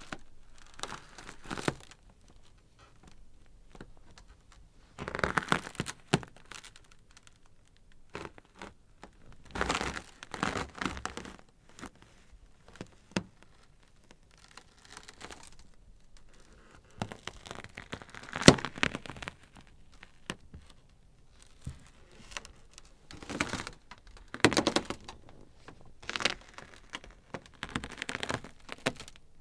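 Ice crackling in irregular bursts of sharp cracks and crinkling pops separated by quieter gaps, with one sharp crack standing out about two-thirds of the way through.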